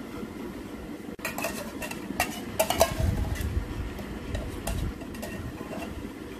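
Metal spoon clinking and scraping against an open tin can as canned fruit cocktail is spooned out into a bowl. A series of sharp clinks, most of them in the first half.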